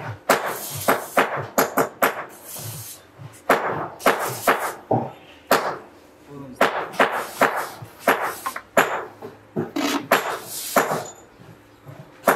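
An irregular string of sharp knocks and scraping strokes as a foam concrete block is worked by hand in its mould, several a second at the busiest.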